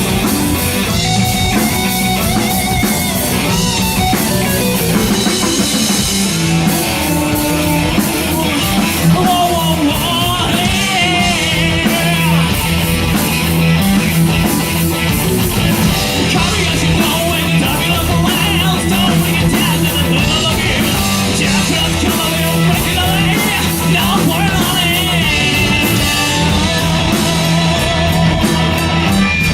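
Live hard rock band playing at full volume: electric guitar and drum kit over a steady bass line.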